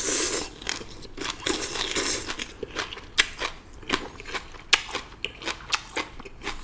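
Close-up chewing of stir-fried morning glory (water spinach): crisp crunches and wet mouth clicks, with a louder crunchy bite at the start and another about a second and a half in.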